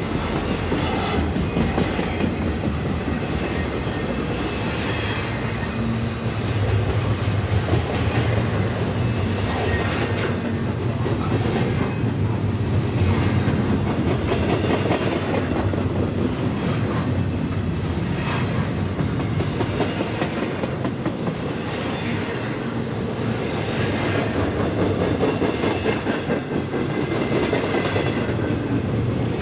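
Cars of a doublestack intermodal freight train rolling past: a steady rumble of steel wheels on rail with repeated clicks as the wheels cross rail joints.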